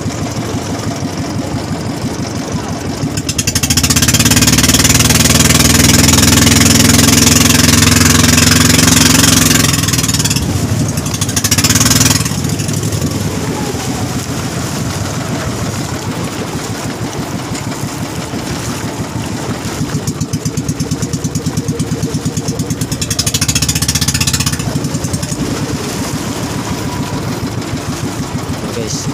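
Small fishing boat's engine running steadily while under way. From about four seconds in it gets louder for several seconds, with a loud rushing hiss on top, and there are brief louder surges near twelve seconds and again later on.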